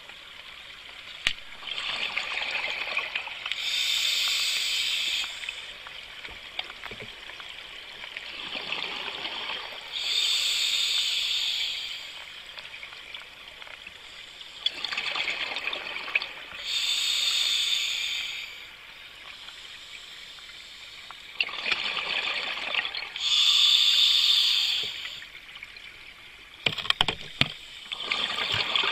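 A scuba diver breathing through a regulator underwater: a hiss followed by a louder rush of exhaled bubbles, in a slow cycle of about four breaths, each about six seconds apart. A crackle of clicks comes near the end.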